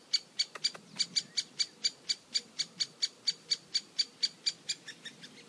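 Woodpecker calling: a long unbroken run of short, high call notes repeated evenly about four times a second.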